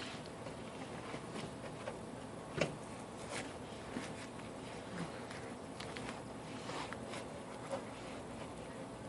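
Faint handling noises as adhesive-backed padding is worked onto a car's roof panel: light rustling with scattered small taps, the sharpest about two and a half seconds in.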